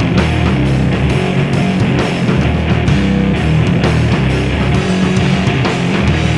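A rock band playing live: amplified electric guitars holding low sustained notes over a drum kit with cymbals, the drum strikes coming steadily.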